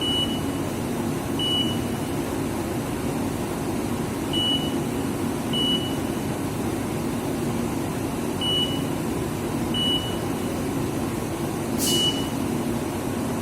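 Haas VF4 CNC mill running with a steady hum, while a short high beep sounds seven times, mostly in pairs about a second and a half apart. A sharp click comes near the end.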